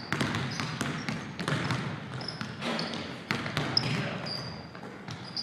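Basketball bouncing on a hardwood gym floor in an irregular run of knocks during play, with short high sneaker squeaks in between.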